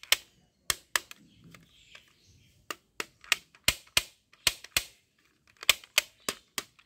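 Sharp plastic clicks and taps from handling a toy gun set, about fifteen at an uneven pace, often in quick pairs.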